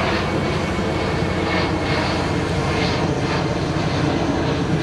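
Steady jet noise from the Antonov An-178's two turbofan engines as the aircraft flies its display.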